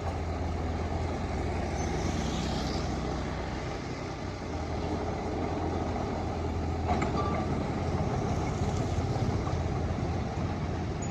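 Heavy diesel engine of earthmoving machinery running steadily under load, with a deep drone that eases slightly about four seconds in and then builds again.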